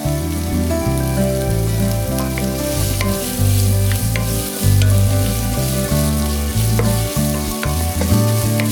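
Stir-fry of fish cakes sizzling in oil in a frying pan as it is stirred, with sharp taps of the spatula against the pan now and then.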